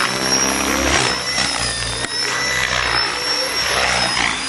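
Align T-REX 600 radio-controlled helicopter in flight, its motor and rotor giving a steady high whine that wavers slightly in pitch, over a low hum.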